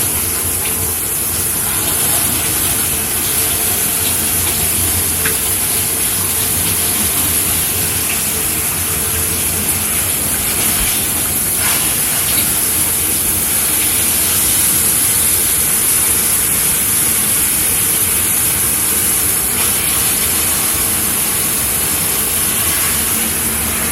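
Shower head running steadily, a constant hiss of spray falling.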